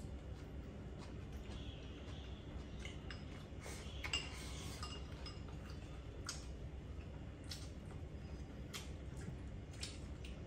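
Chopsticks clicking against porcelain rice bowls and serving plates during a meal: a dozen or so light, scattered clinks over a steady low hum.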